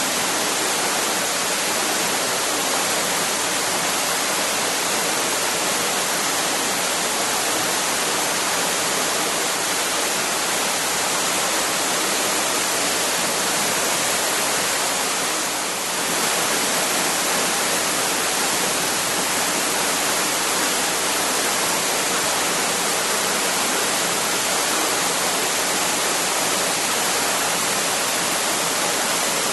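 Waterfall: water falling and rushing in a steady, even roar, with a brief dip in level about halfway through.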